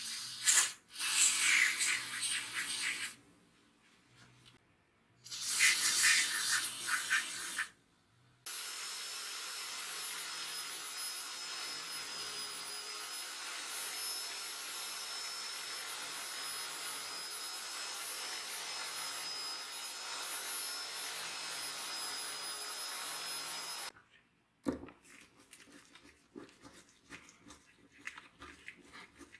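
Two loud hissing blasts of a few seconds each, then a bench buffing wheel running steadily for about fifteen seconds with a thin high whine while an aluminium chainsaw carburetor body is polished on it. Near the end, light clicks and scrapes of a screwdriver working on the carburetor.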